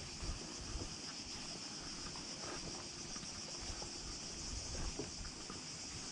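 A chorus of cicadas buzzing steadily and high-pitched, with soft footsteps on a concrete path.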